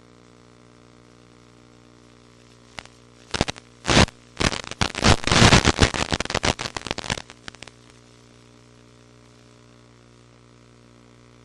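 Steady electrical hum with a burst of loud crackling and popping static lasting about five seconds, starting a few seconds in.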